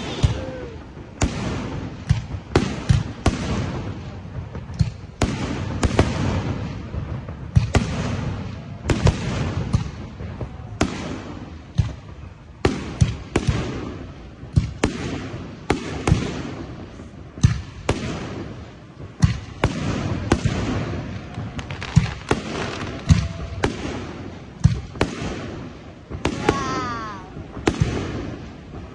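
Aerial fireworks shells bursting one after another, a sharp bang every second or so, each trailing off in a rumbling echo, with crackle and hiss in between.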